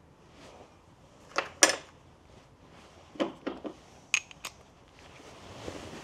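Several sharp, short metallic clinks and taps, about seven in all, from small metal parts and hand tools being handled during a spark plug change.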